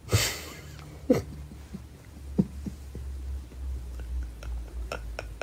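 A man laughing to himself: a breathy burst of laughter at the start, a short chuckle about a second in, then a few faint chuckles, over a low rumble.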